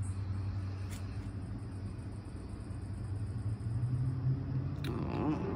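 A low, steady mechanical hum that rises slightly in pitch about four seconds in. Over it there is a faint, fast, high-pitched pulsing that stops at about the same point, and two short clicks, one about a second in and one near the end.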